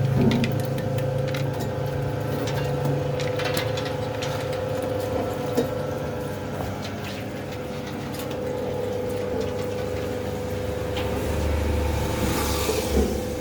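Motorised citrus juice press running steadily, a humming motor with a constant whine, scattered light clicks and knocks from the pressing fruit and the machine, and a hiss that swells briefly near the end.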